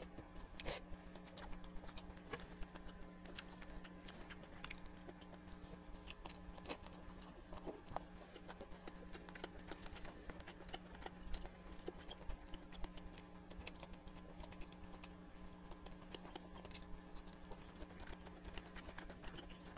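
Close-miked chewing of grilled skewered meat and seafood: a stream of small irregular wet clicks and crunches. A steady low hum runs underneath.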